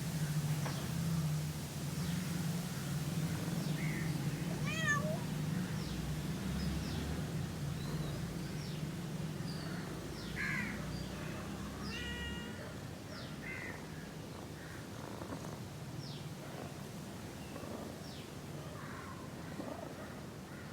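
A cat snoring: a low steady rumble that fades about halfway through, with short high chirps over it.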